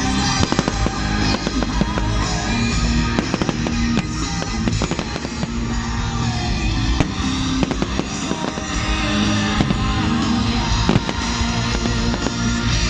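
Fireworks going off in a rapid, uneven string of bangs and crackles, over loud music with a steady bass line.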